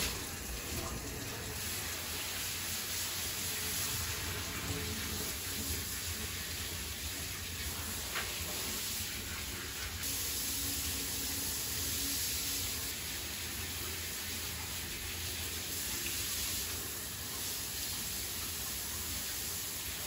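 Handheld shower head spraying water steadily into a bathtub, onto a large dog being bathed.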